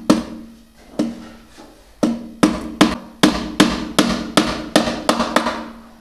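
Hammer driving small nails through a metal keyhole plate into a drawer front: three slow taps, then a quicker run of about nine strikes at two to three a second, each leaving a short low ring.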